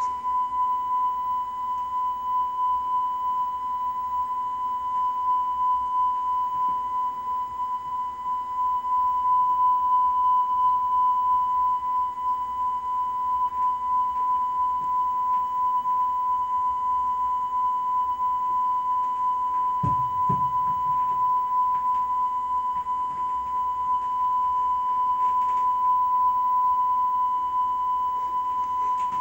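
A television playing a continuous, steady high-pitched beep tone from a VHS tape while the picture shows only a blank white screen. A brief low thud comes about two-thirds of the way through.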